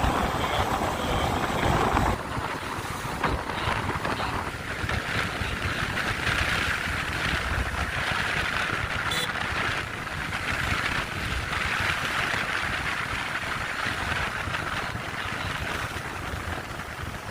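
KTM RC 200 motorcycle being ridden: a steady rush of wind over the microphone, with road and vehicle noise beneath.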